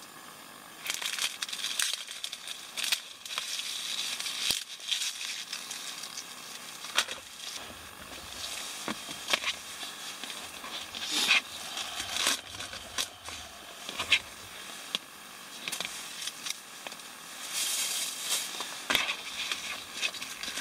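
A plastic produce bag crinkling as a bunch of garlic chives is handled and taken out, followed by scattered sharp taps of an Opinel folding knife chopping the chives on a thin plastic cutting board, with more crinkling near the end.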